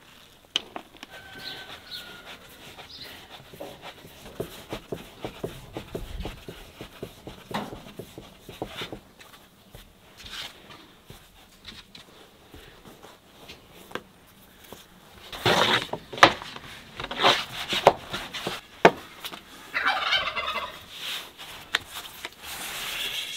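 Turkey gobbling several times, the loudest calls in the second half, over soft tapping and rustling of hands at work.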